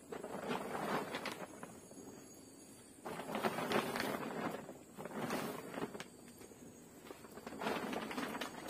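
A plastic tarpaulin rustling and crinkling as it is pulled and spread over a shelter frame, in about four bursts of a second or so each.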